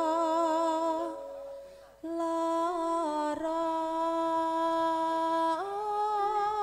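A woman singing long held notes with a wavering vibrato, apparently unaccompanied, in a Javanese campursari style. She pauses briefly about a second in, then picks up again and steps up in pitch near the end.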